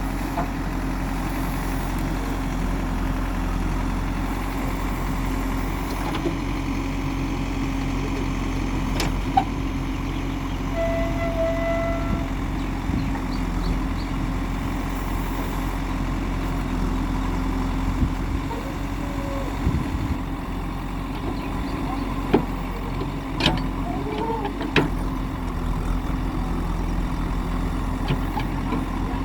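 Diesel engine of a backhoe loader running steadily with a constant low hum, with a few sharp knocks or clanks now and then.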